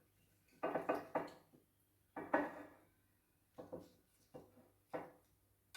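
Household objects being handled and set down: several separate knocks and clatters, the loudest in the first half.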